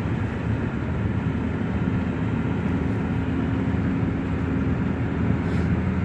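Car driving with the side window open: steady wind noise rushing in over the low hum of the engine and road.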